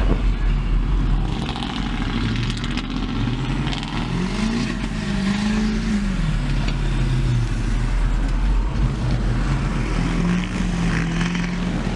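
Lifted diesel pickup truck's engine revving up and down as it spins donuts on grass: the pitch climbs about four seconds in, holds, falls back, and rises again near the end, over a steady low rumble.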